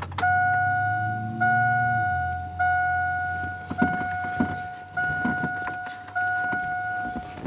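2002 Chevrolet Silverado dashboard warning chime: one steady tone rung six times, about once every 1.2 seconds, each ring fading away.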